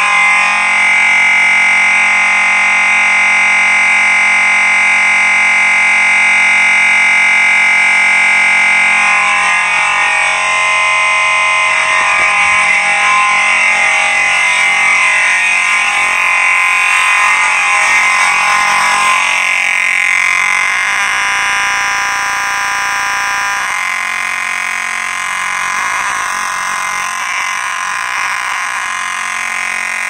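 Faraday 6226-HS mechanical vibrating fire alarm horn, a Harrington-rebranded horn strobe, sounding a continuous loud buzz. It is running off a battery, which the owner thinks keeps it from sounding as clean as usual. It grows somewhat fainter in the second half.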